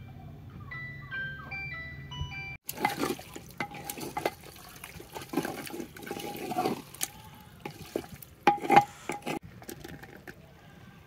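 Brief melodic background music, cut off about two and a half seconds in by a wooden spoon stirring and scraping wet beef liver and onions in an earthen clay pot, an irregular wet clatter with a few sharp knocks, the loudest a little past the middle.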